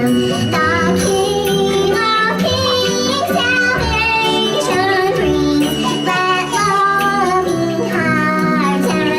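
Music: a song with a singing voice over instrumental accompaniment and a steady beat.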